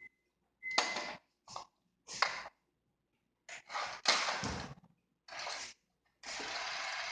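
Kitchen blender switched on in several short bursts, with a thump in the middle, then left running steadily from about six seconds in.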